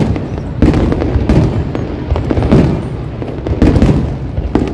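Aerial firework shells bursting in quick succession: loud booms about once a second, with crackling and rumble between them.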